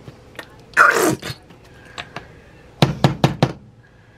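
Ketchup squeeze bottle squirting into a pan of gravy with a short sputter about a second in, then four quick, sharp knocks a little before three seconds in.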